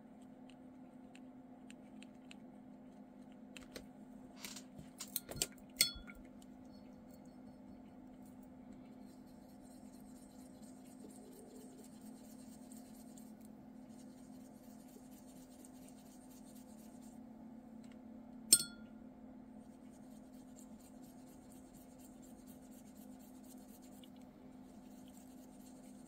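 Soft scratchy rubbing of a watercolour paintbrush working wet paint on a small paper dot card, in two stretches. A few small clicks and taps come early on, and one sharp click about two-thirds of the way through is the loudest sound.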